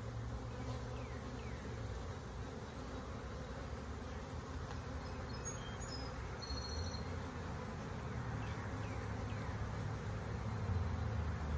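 Honeybees buzzing around an open hive: a steady hum of many bees.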